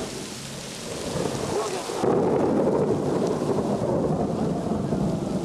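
Thunder over steady rain: a low rolling rumble builds about a second in and turns loud about two seconds in, drowning out the hiss of the rain.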